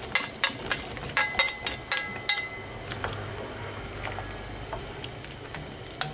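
A metal utensil knocking and clinking against a metal stew pot as vegetables are stirred in. There is a quick run of clinks, some briefly ringing, over the first couple of seconds, then only a quieter steady background.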